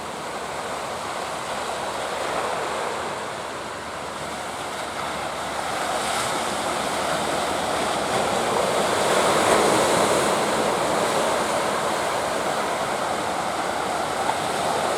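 Ocean surf breaking and washing, with wind; the rush of water builds about six seconds in and stays strong.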